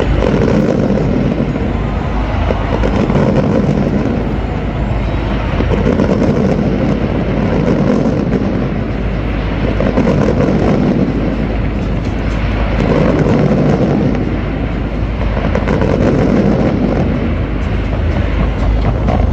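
Fireworks display: a continuous low rumble of exploding shells that swells every two to three seconds.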